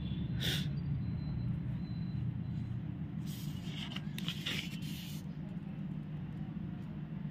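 A notebook page being turned, its paper rustling and crackling for about two seconds, over a steady low hum. There is a brief paper rustle about half a second in.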